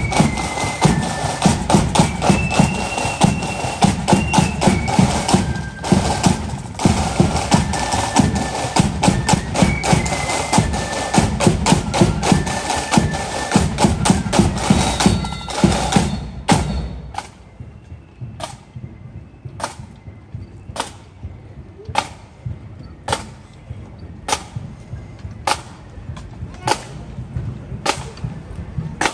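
Marching band playing a tune: a high stepping melody over side drums and a bass drum. About 16 seconds in the tune ends, and a single sharp drum tap about once a second keeps the marching beat.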